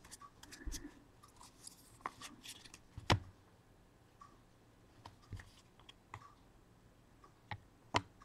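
Faint scattered clicks and taps of trading cards and packaging being handled, with a sharper click about three seconds in and another near the end.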